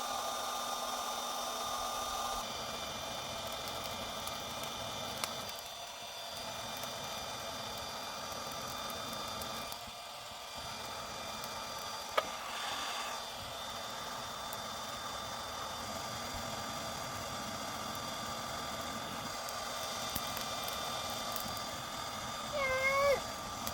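Hair-dryer motor and fan, rewired to run as a 12 V blower, running with a steady whir and a few constant whine tones. Near the end a brief, loud, wavering pitched call cuts in.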